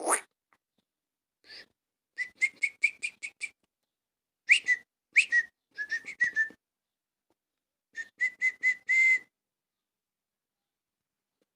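A cat meows right at the start, then a person makes three runs of short, rapid, squeaky whistle-like calls, about five or six a second, to call the cat.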